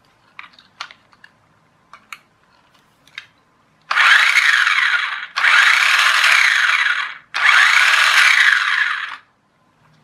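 The toy RC car's small electric drive motor whirring through its gears in three bursts of one to two seconds each as power is applied directly to test it; it runs, showing the motor works. Light handling clicks come before it.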